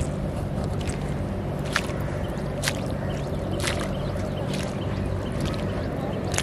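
Footsteps in sandals squelching through wet mud, about one step a second, over a steady low hum.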